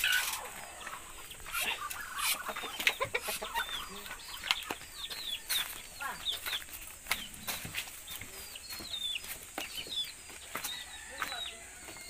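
Chickens clucking, with many short, high peeps falling in pitch repeating throughout, over scattered footsteps and rustling.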